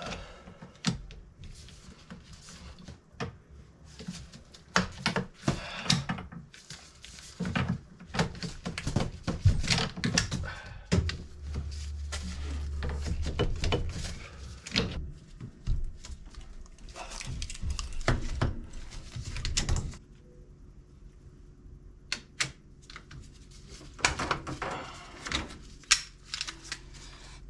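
Plumbing tools and pipe fittings being handled: a long string of knocks, clicks and rustling, with a low hum for about three seconds near the middle.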